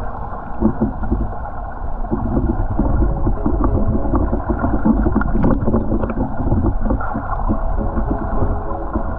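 Water from a waterfall pool rushing and churning, heard muffled, with many small splashes and knocks throughout.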